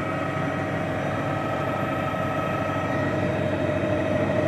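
Helicopter running steadily: a constant whine over a rushing noise.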